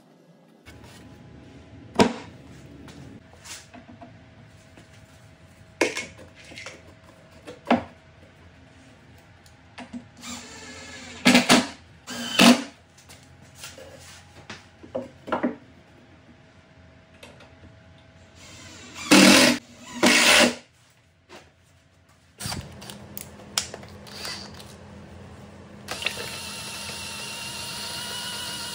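Cordless drill run in short bursts, a few around eleven to twelve seconds in and again around nineteen to twenty seconds, with scattered knocks and clicks of plywood parts being handled between them. Near the end a drill starts and runs steadily, spinning a paint-mixing paddle in a can of paint.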